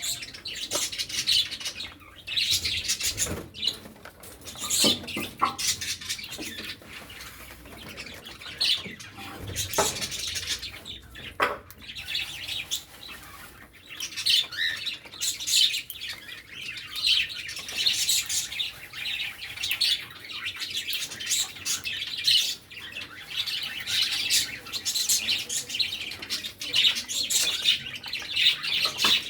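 Cockatiels chirping continually while feeding, short high calls overlapping one another, with a few sharp knocks and clicks among them.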